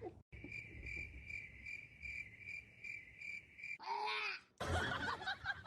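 A cricket chirping in a steady high pulsing trill, about four to five pulses a second, which cuts off a little past the middle. A short voice-like call with a bending pitch follows, then mixed noise.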